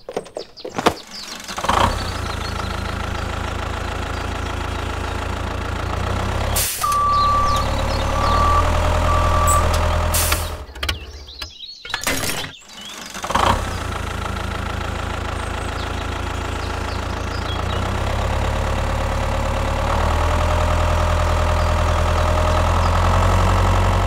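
Tractor engine running steadily, cutting out briefly around halfway and starting again. A beep and then two shorter beeps sound about seven to nine seconds in.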